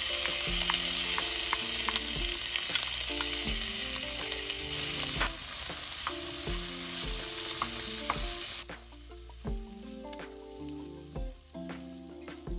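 Mixed vegetables sizzling in hot oil with onions in an aluminium dutch pot, stirred with a wooden spoon that clicks and scrapes against the pot. The loud sizzle drops off suddenly about two-thirds of the way through and carries on more quietly.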